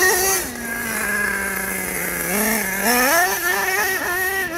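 Small engine of a radio-controlled off-road car: it starts at high revs, drops to a steady lower note for about two seconds, then revs up and down repeatedly under the throttle.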